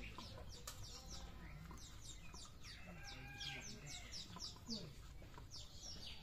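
Chickens clucking, with small birds chirping in many quick falling notes.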